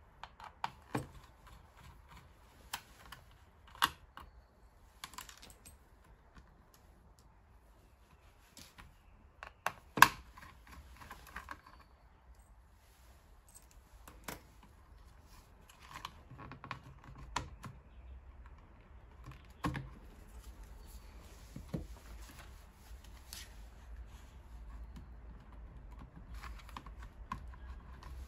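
Irregular small clicks and taps of hard plastic being handled and worked with small tools, as when opening a scan-tool tablet's case, with one sharper click about ten seconds in.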